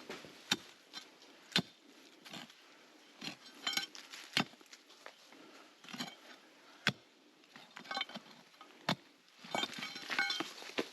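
Metal bar striking hard rock: about a dozen irregular sharp knocks, with a quick run of ringing metallic clinks near the end.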